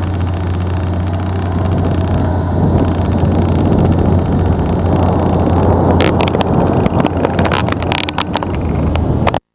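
L-19 Bird Dog tow plane's piston engine running steadily as the plane rolls along the runway, with wind noise on the microphone. Sharp crackles come in over the last few seconds, and the sound cuts off abruptly just before the end.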